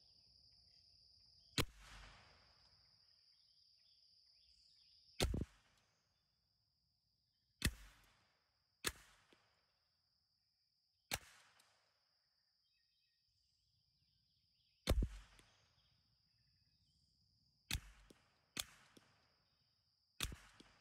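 Nine single .22 LR shots from a Ruger 10/22 semi-automatic target rifle with a 20-inch fluted barrel, fired at an uneven, deliberate pace one to four seconds apart, each a sharp crack with a short tail.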